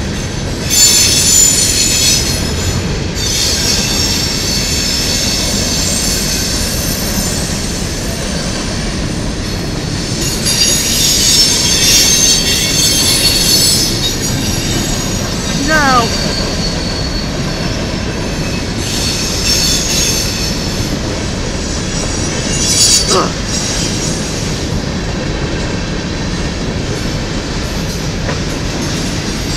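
Freight trains' hopper cars rolling past on the rails, a steady rumble and clatter. Wheel squeal comes and goes in several high-pitched stretches of one to three seconds.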